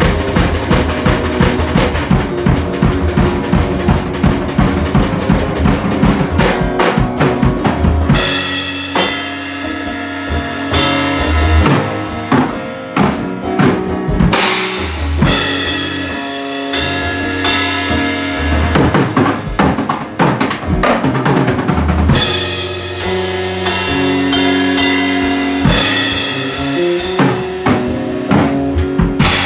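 Live home jam of electric guitar and drum kit. Fast, busy drumming at first; about eight seconds in it opens out into cymbal crashes under held guitar chords.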